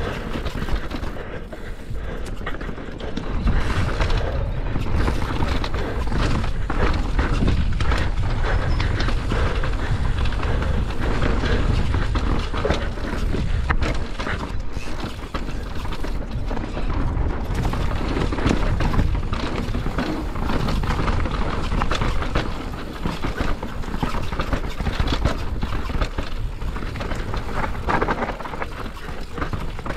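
Mountain bike descending a rough enduro trail at speed: tyres rattling over dirt and roots, with frequent knocks and clatter from chain and frame. Heavy wind rumble on the microphone runs underneath.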